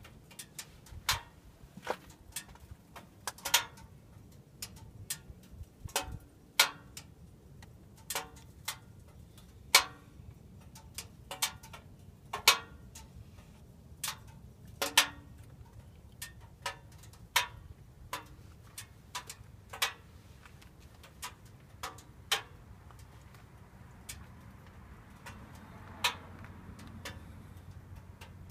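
Irregular ticking from a Subaru's engine just after it has been shut off: sharp clicks at uneven spacing, roughly one or two a second, some much louder than others. The owner wonders whether it is simply the engine cooling off.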